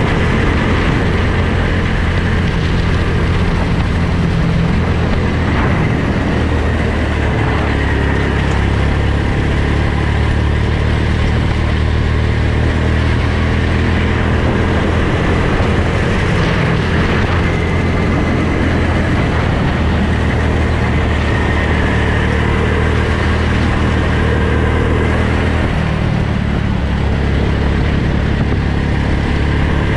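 Go-kart engine running steadily at speed. Its even note sits under a constant rushing noise.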